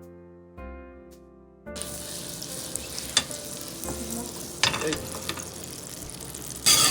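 Soft piano music, then about two seconds in, butter sizzling as it melts in a hot pan on the stove, with a few sharp clicks of a utensil against the pan. A louder rush of noise starts just before the end.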